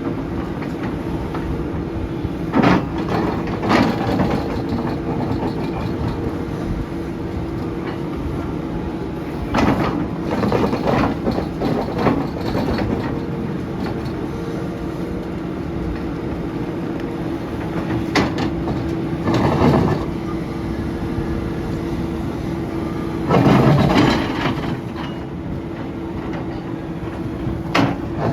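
A SANY SY500H hydraulic excavator's diesel engine runs with a steady hum. Irregular loud bursts of noise break in every few seconds as the ripper tooth works the ground.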